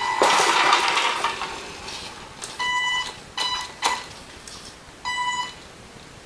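Tamiya TL-01 RC monster truck's stock 540 electric motor whining at one steady high pitch in several short throttle blips, each under a second, with a longer rush of drivetrain and tyre noise about a second long just after the start. Two sharp knocks, one near the start and one about four seconds in.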